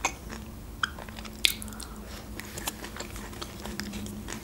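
Close-up chewing of a mouthful of sushi, with wet mouth sounds and a few sharp crunchy clicks, the loudest about a second and a half in.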